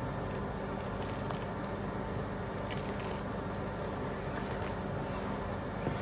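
Soup thickened with cornflour simmering in a pot, a steady bubbling with faint small pops.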